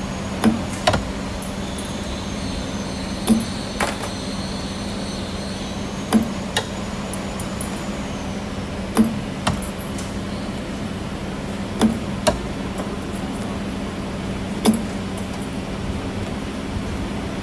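CNC camless spring forming machine running under a steady hum. Its tool slides strike with pairs of sharp metallic knocks that repeat about every three seconds as it bends flat wire into hook springs.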